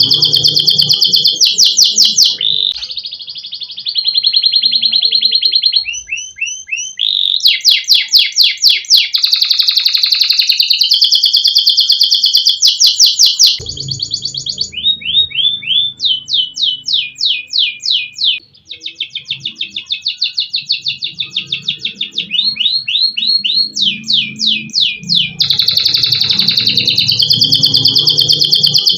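Adult F2 canary singing a loud, nearly unbroken song of fast trills and rolls: rapid runs of repeated notes that switch to a new phrase every second or two, with barely a pause.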